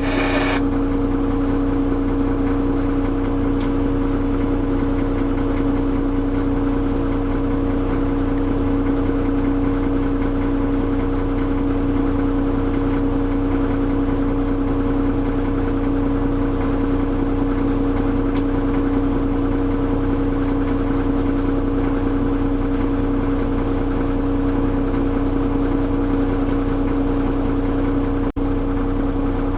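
Engine idling steadily, a constant hum that does not change in speed; it drops out for an instant near the end.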